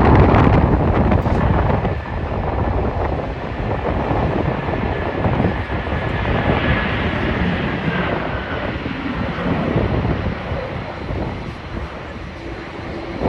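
Jet airliner's engines running loud as it passes, with a faint whine that falls slightly in pitch midway and the noise easing a little near the end.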